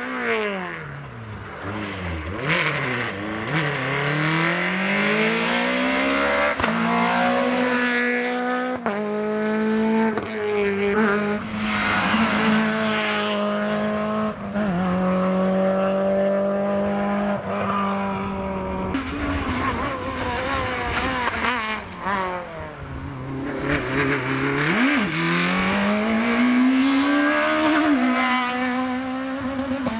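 Rally cars, Renault Clios among them, passing one after another on a tarmac stage. The engines rev hard through the gears, the note stepping at each gear change, falling as they slow and climbing again as they accelerate away.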